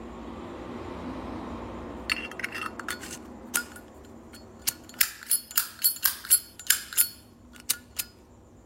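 Zippo lighter's hinged metal lid being flicked open and snapped shut again and again: sharp metallic clicks, each with a short ringing chime, coming about two a second at their busiest. A soft rushing noise fills the first two seconds before the clicks begin.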